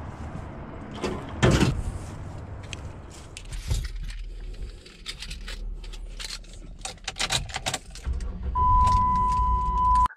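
A wire cage dropped into a pickup's steel bed with a loud knock about a second and a half in, then keys jingling and clicking. Near the end the 2007 Dodge Dakota's 3.7 L V6 starts and runs with a low rumble under a steady beep, then cuts off suddenly.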